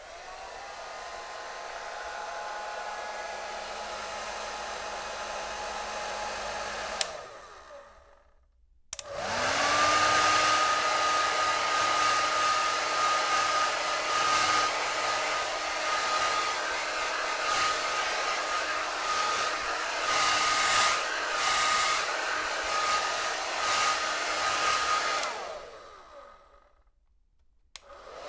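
Electric hair dryer switched on and running with a steady whir of motor and rushing air. About 7 seconds in it clicks off and winds down. About 9 seconds in it comes back on louder, with a whine that rises and settles at a steady pitch, runs until about 25 seconds, then is switched off and spins down before clicking on once more near the end.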